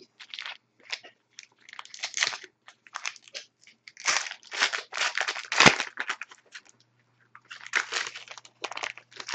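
Plastic wrapper of a hockey card pack crinkling and crumpling in the hands as it is torn open, in irregular bursts, with a bump on the table about halfway through.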